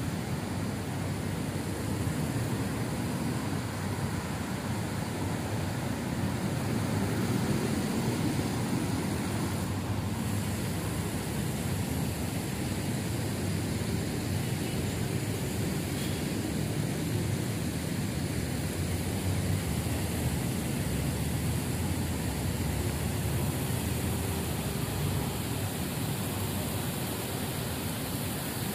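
Steady low rumble of distant city road traffic, an even wash of noise with no distinct events.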